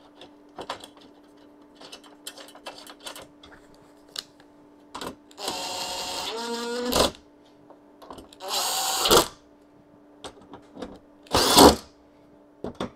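Makita cordless drill-driver driving mounting bolts through a steel TV mount bracket into the back of a television. It makes one run of about a second and a half that rises in pitch as the bolt runs in, then two shorter bursts of tightening. Light clicks of bolts and parts being handled come before the first run.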